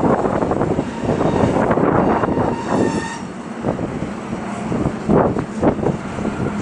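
Freight train of tank wagons and container wagons rolling past: a steady rumble of wheels on rail with repeated clacks over the track, and a brief high-pitched squeal about three seconds in.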